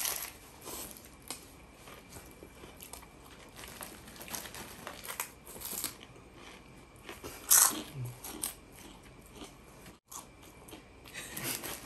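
Close-up chewing and crunching of chicharon (crispy fried pork rinds), in irregular bites with a few louder crunches.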